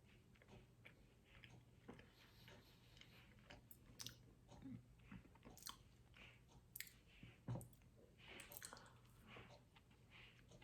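A person chewing food with the mouth close to the microphone: faint, irregular mouth clicks and soft chewing, with one sharper click about three quarters of the way through.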